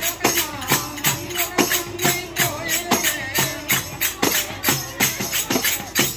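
Folk devotional music: hand-held frame drums struck in a steady beat, about four strokes a second with a jingling ring, under a singing voice.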